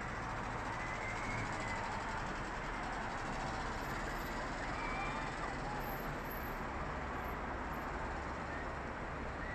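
Steady outdoor din of a large crowd heard from a distance, with a few faint calls or shouts rising briefly above it.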